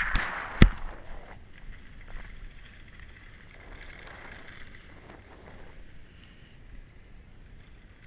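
Skis hissing and scraping over snow during a downhill run, loudest in the first second and then easing to a fainter, uneven hiss. One sharp knock comes just over half a second in.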